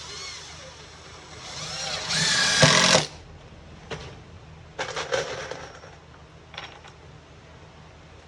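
Power driver sinking a #8 GRK wood screw through sheathing: the motor winds up and runs under load for about three seconds, getting louder before it stops sharply. Two shorter bursts follow, one about five seconds in and a brief one a little later.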